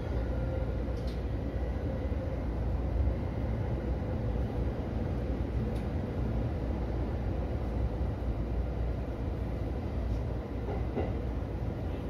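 E233-series electric commuter train rolling slowly along a station platform, heard from inside the driver's cab: a steady low rumble of wheels and running gear, with a faint whine that fades away over the first few seconds and a few light ticks.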